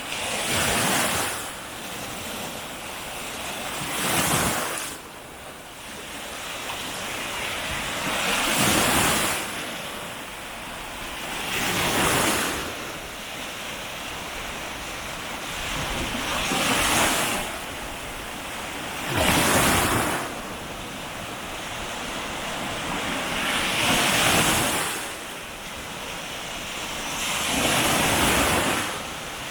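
Baltic Sea waves breaking on the beach: a wash of surf that swells and falls away about every four seconds, eight times.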